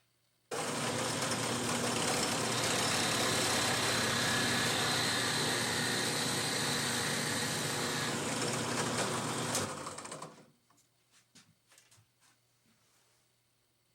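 Electric power-tool motor switching on abruptly, running steadily for about ten seconds, then switching off and winding down quickly, followed by a few light clicks.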